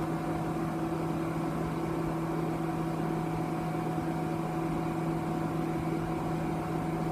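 Steady low hum with a fainter whir from a running Tektronix 2467B oscilloscope: its cooling fan and mains hum.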